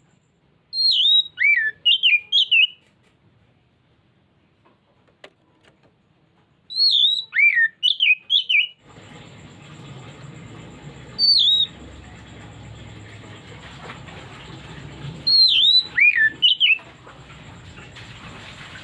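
Oriental magpie-robin singing in four bouts of loud, clear whistled phrases that swoop sharply up and down in pitch. A steady background hiss and hum comes in about halfway through.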